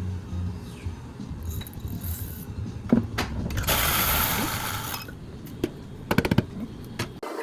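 Metal parts of a coffee grinder clicking and clinking as it is taken apart or adjusted, with a short hiss about three and a half seconds in and a quick run of clicks near the end.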